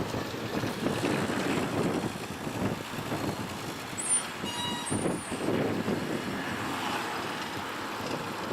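Road traffic, motor vehicles passing with a shifting rumble of engines and tyres, and a brief high squeal about four seconds in.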